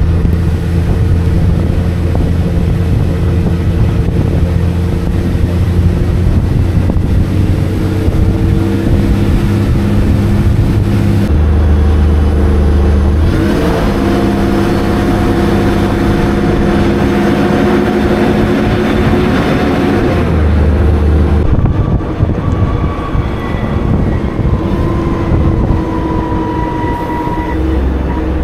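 Diesel engine of a double-decker bus running under way, a loud steady rumble whose tone shifts to a new pitch several times as the bus changes speed. A fainter higher whine comes in during the last few seconds.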